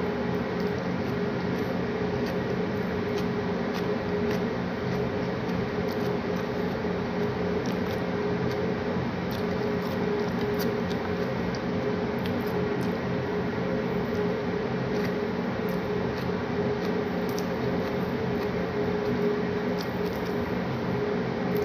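Eating by hand and chewing: faint scattered wet smacks and clicks over a steady machine hum.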